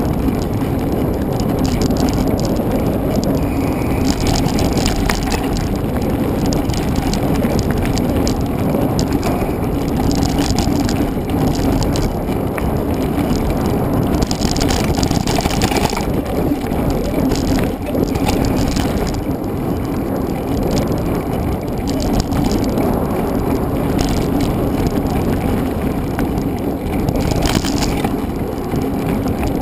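Mountain bike being ridden over a race trail: a steady rumble of tyres on the ground with the bike rattling, and brief louder rushes of hiss about halfway through and near the end.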